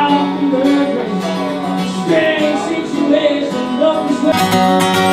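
Country song on acoustic guitar with a voice singing; the strumming grows fuller near the end.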